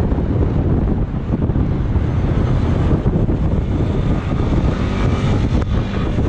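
Wind buffeting a moving road bike's action-camera microphone: a loud, steady low rumble from riding at speed.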